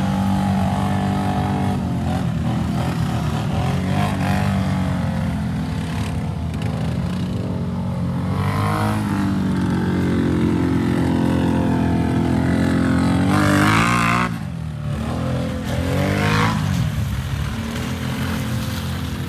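Ford Maverick's 2.0-litre EcoBoost four-cylinder engine running under load. The revs climb several times; the biggest climb cuts off suddenly about fourteen seconds in, followed by another short rise and fall.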